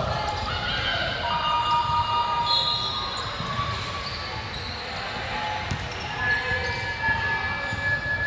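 Basketball bouncing on a hardwood gym court, with sneakers squeaking on the floor in several short high squeals and voices in the echoing hall.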